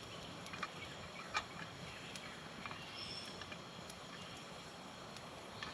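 Small campfire of sticks and fatwood crackling: a steady faint hiss with scattered sharp pops, the loudest about a second and a half in.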